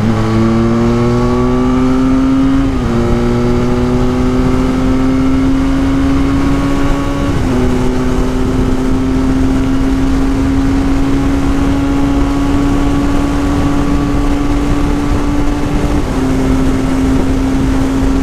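Benelli 502C's 500cc parallel-twin engine pulling hard at highway speed, its note rising steadily and dipping briefly with gear shifts about three seconds in, about seven seconds in and near the end, over a steady rush of wind noise.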